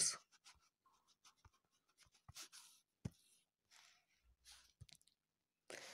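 Faint, scattered scratches and taps of writing, a few short strokes with pauses between.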